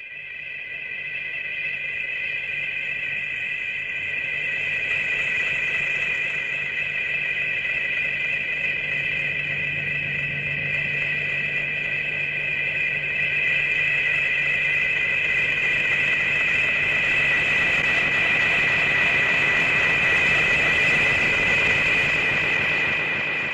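Sustained sci-fi monster sound effect: a steady high two-note whine over hiss and a low hum. It fades in over the first couple of seconds and fades out at the end.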